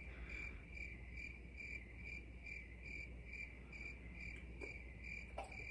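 A cricket chirping steadily and faintly: a high, even trill pulsing a little more than twice a second.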